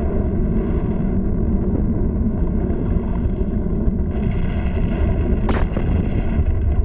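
Continuous deep rumble of an erupting volcano, a 1940s cartoon sound effect, with one sharp crack about five and a half seconds in.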